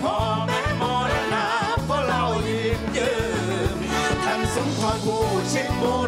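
Live band performing a Thai song: singing with a wavering vibrato over a steady bass line, drums and guitar.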